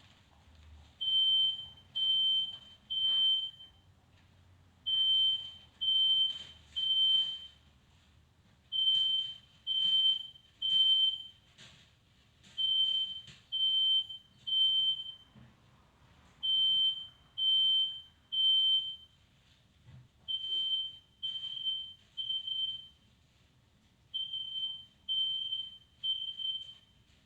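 Smoke alarm sounding, high beeps in groups of three with a short pause between each group, over and over: the temporal-three pattern that signals smoke detected.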